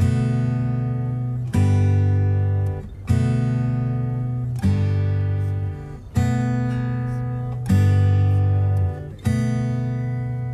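Background music: acoustic guitar strumming chords, a new chord struck about every second and a half and fading until the next.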